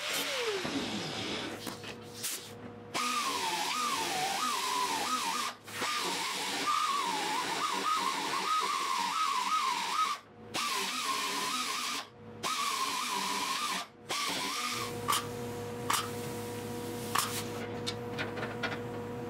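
Small angle grinder grinding the sheet-steel edge of a car roof panel, its whine wavering up and down in pitch as it is pressed into the metal, with a few short breaks. In the last few seconds it gives way to a steady hum with scattered sharp clicks.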